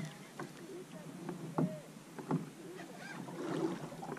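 Water slapping against the hull of a fishing kayak in short, irregular splashes and knocks, several in a few seconds.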